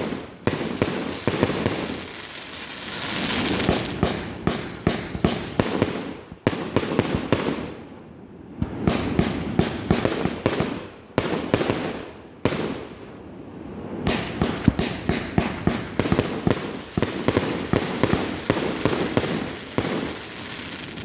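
Fireworks display: rapid volleys of bangs and crackling, with a few brief lulls between volleys.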